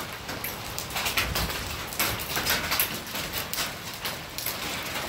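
Hailstones falling: an irregular clatter of sharp hits on hard surfaces over a steady rain-like hiss.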